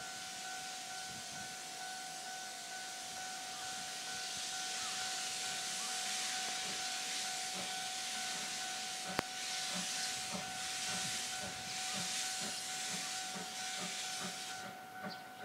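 Steam locomotive hissing as steam blows from its open cylinder drain cocks while it starts away. Slow exhaust chuffs, about two a second, begin partway through, there is one sharp click, and the hiss cuts off near the end. A level-crossing alarm rings steadily underneath.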